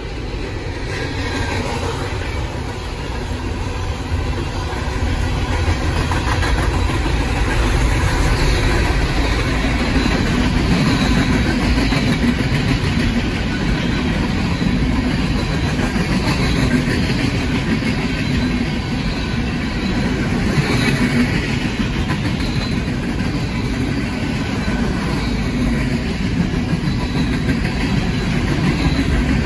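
Diesel-hauled freight train passing, with locomotive engine sound and steel wheels rolling on rail. It grows louder over the first several seconds as it nears, then holds steady as the train rolls by.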